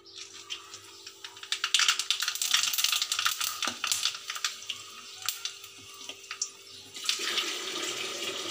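Whole spices, cinnamon and cloves, sizzling and crackling in hot oil in an aluminium kadai; the crackle gets dense about a second and a half in and stays busy for several seconds.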